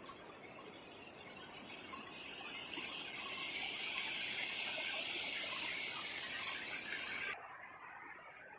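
A steady, high-pitched insect drone, like a cicada chorus, that cuts off abruptly about seven seconds in.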